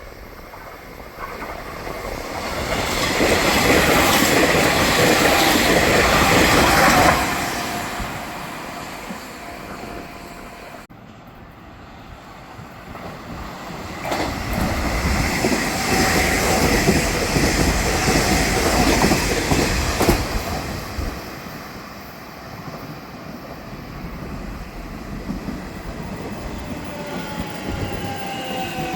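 Electric commuter trains on the Nishitetsu Tenjin-Ōmuta Line running past, wheels clattering over the rail joints; two loud passes of a few seconds each, the first cutting off sharply. Near the end a rising whine begins, as of a train's traction motors as it pulls away.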